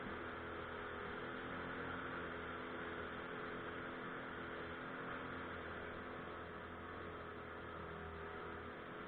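Pontoon boat's outboard motor running at a steady speed, a constant hum under an even hiss.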